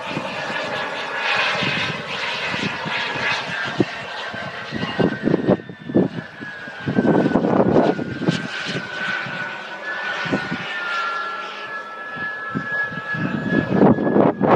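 Two model J-10 jets flying overhead in tandem: a steady high engine whine that drifts slightly in pitch as they manoeuvre, mixed with irregular bursts of rushing noise.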